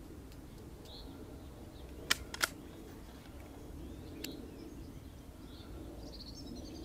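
Two sharp clicks about a third of a second apart, with a fainter click about two seconds later, from the moderated CZ 452 .22 rimfire rifle. Faint bird chirps sound over a steady low outdoor background.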